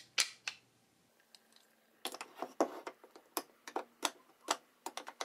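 Metal dowelling jig's indexing slide clicking into its detent grooves as it is moved: a couple of sharp clicks at first, then a quick, irregular run of about a dozen clicks from about two seconds in.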